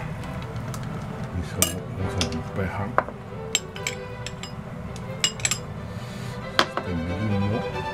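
A metal spoon and chopsticks clink and tap against a small dish while miso is scooped and scraped off the spoon: a scatter of sharp clicks, over background music.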